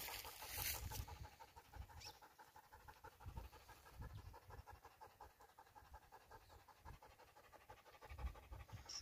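Sloughi sighthound panting quickly and faintly.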